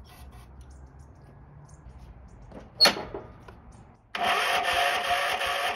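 A short, sharp hiss about three seconds in. Then, a second later, the riding mower's electric starter engages suddenly and cranks the engine steadily, chugging about three times a second without catching, on an attempt to start it on carb cleaner with no fuel line connected.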